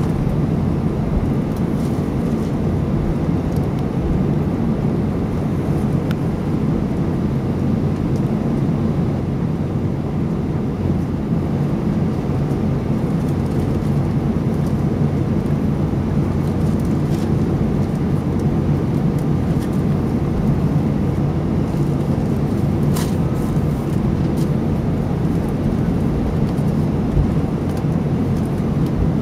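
Steady low rumble inside the cabin of an Airbus A320 as it taxis, its jet engines running at low taxi power.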